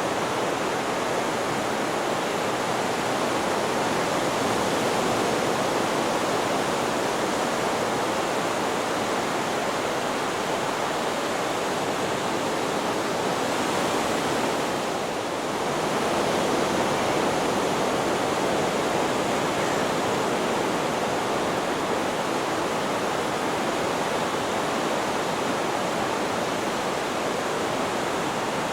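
Steady rushing hiss of sleep-aid white noise, even like a waterfall, with one brief dip in level about halfway through.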